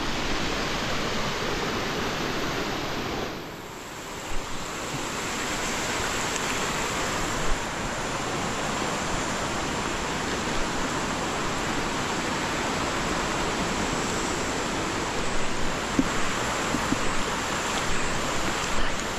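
Floodwater of the overflowing Paz River rushing steadily, an even rush of noise that briefly drops about three and a half seconds in.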